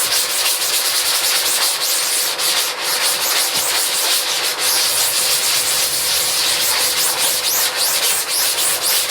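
Emulsion remover being rubbed into the mesh of a screen-printing screen: fast, continuous scrubbing strokes that agitate the coating so it starts to break down.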